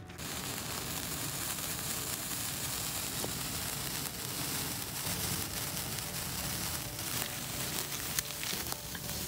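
Handheld sparklers burning: a steady fizzing hiss with a few small crackles.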